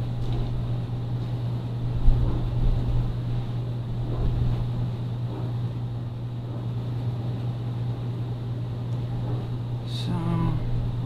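Steady low hum of room noise, with a sharp knock about two seconds in and a few fainter knocks as a sword is handled. A short murmur of a man's voice comes near the end.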